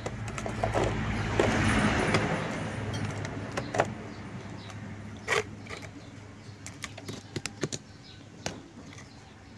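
Light clicks and taps of multimeter test probes and wire ends being handled during a continuity check, over a low steady hum. A rush of noise swells and fades in the first few seconds and is the loudest sound.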